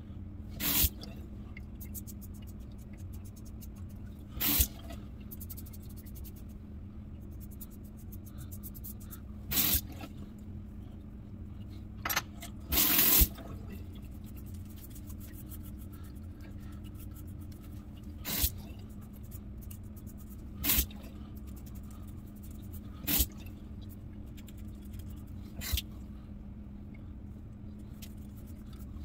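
Double-edge safety razor with a Tiger Platinum blade being drawn across lathered stubble in short strokes, about nine brief scrapes a few seconds apart, the longest and loudest about halfway through. A steady low hum runs underneath.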